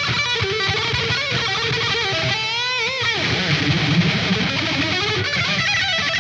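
Distorted electric guitar solo through the Black Sun amp plugin with a Devil's Lab Hell cabinet impulse, over a heavy metal backing of rhythm guitars and drums. The lead holds notes with wide vibrato and bends, and about three seconds in a bent note drops away into lower phrases.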